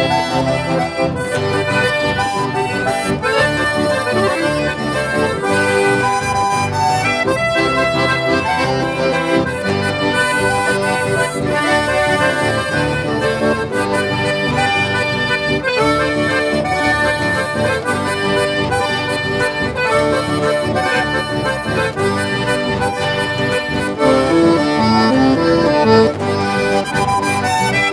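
Instrumental break of a song: a button accordion plays the lead melody over guitar and bass backing, getting a little louder near the end.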